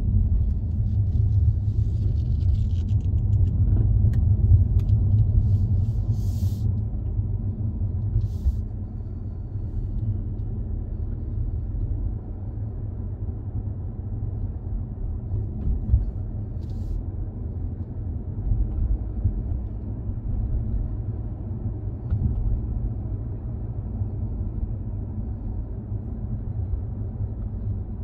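Car driving at motorway speed: a steady low rumble of engine and tyre noise, easing slightly after about ten seconds, with a few brief faint hisses.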